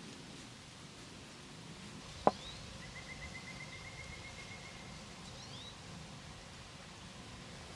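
Quiet woodland ambience with a faint rustling haze. A single sharp click comes a little over two seconds in, followed by a short level trill of rapid notes from a small bird and a couple of brief high chirps.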